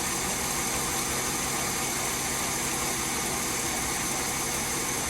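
Mercedes-Benz W204's engine idling steadily, its accessory drive belt running quietly without a squeal on a newly replaced belt tensioner.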